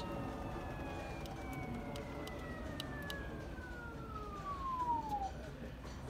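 AEG washing machine's drum motor whining as the spinning drum winds down after being switched off during the service-mode spin test. The whine falls steadily in pitch and dies away about five seconds in, over a low hum, with a few faint ticks.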